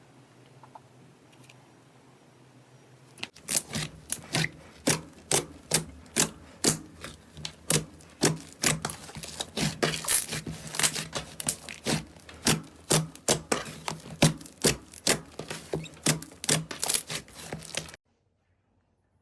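Slime being pressed and squished by hand, giving a run of sharp, sticky pops and clicks, about two to three a second. It starts a few seconds in and cuts off suddenly near the end.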